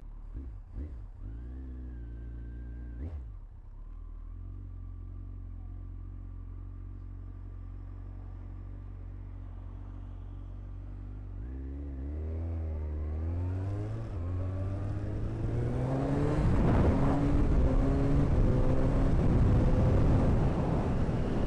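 Kawasaki ZX-14 inline-four sportbike engine idling steadily, with a few short clicks and a brief blip in the first three seconds. About twelve seconds in it revs up and pulls away, its pitch rising in steps through the gears, with wind noise on the microphone growing louder in the last few seconds.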